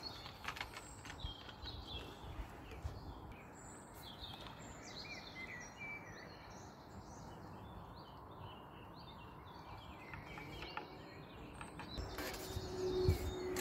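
Small birds chirping now and then over a steady outdoor background rumble. Near the end come a few handling knocks and a steady low hum.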